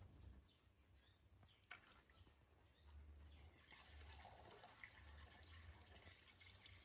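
Near silence: a faint low hum with a faint click about two seconds in and a few faint rustles.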